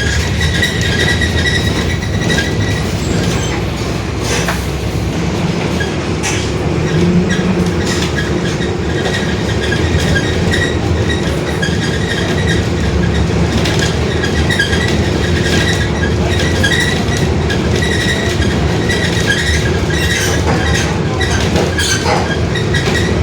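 Mercedes-Benz OF-1721 BlueTec 5 city bus under way, its diesel running with a constant low rumble and the differential whining in a steady high tone that fades in and out, over rattles and knocks from the body.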